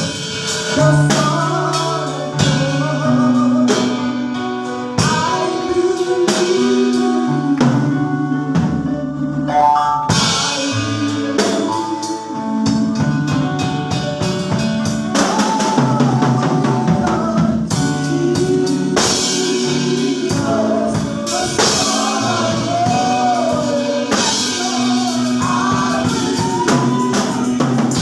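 Gospel praise music: singing over a steady drum kit and bass.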